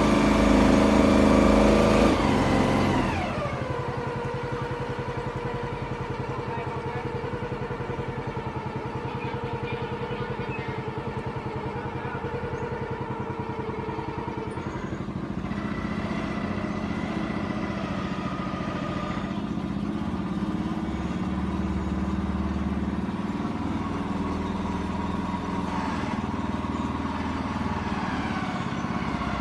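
Boat engine running hard, then throttled back about three seconds in to a lower, steady run, its pitch lifting slightly about halfway through.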